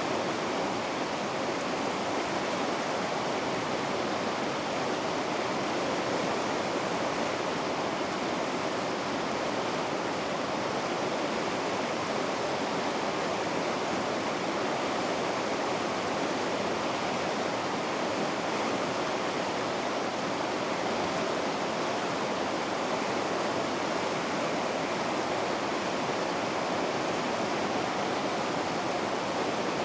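River rapids rushing steadily, an even, unbroken roar of fast water with no change in level.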